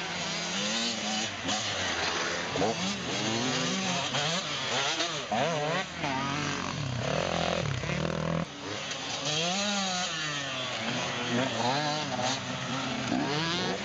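Off-road motorcycle and quad engines revving on a dirt track, their pitch climbing and dropping again and again, with several engines overlapping.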